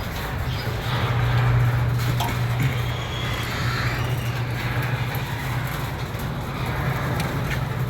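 A 2009 Toyota Camry being cranked over at length without catching, a steady mechanical run with a low hum. This is the crank-but-won't-start fault, which the owner puts down to a failing alternator and battery.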